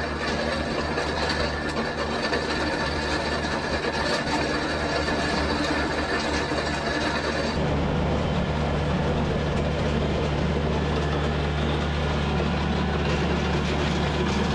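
Kubota BX23S subcompact tractor's three-cylinder diesel running steadily under load, with the steel blades of a land plane scraping and dragging loose gravel. About halfway through the hiss of the gravel drops back and the engine hum comes forward.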